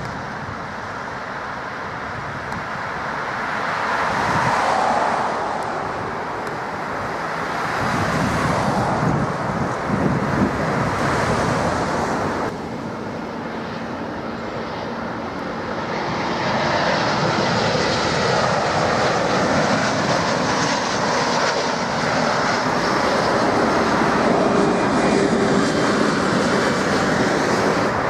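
Jet airliners' engines as landing aircraft pass: a wide-body airliner on the runway, then after an abrupt change an Airbus A320-family jet on low final approach. The engine noise swells and fades, and is loudest and longest through the second half.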